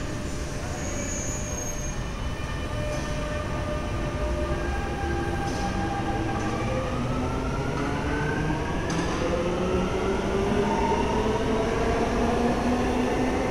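Dubai Metro train's electric traction drive pulling away from the platform: a whine of several tones that starts rising in pitch about five seconds in and keeps climbing over a steady rumble as the train gathers speed.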